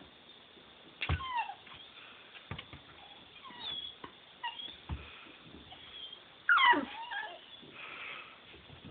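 Pitbull puppy whining: short high cries that fall in pitch, one sharp cry about a second in, a few faint ones, and the loudest about two-thirds of the way through. A few soft knocks between the cries.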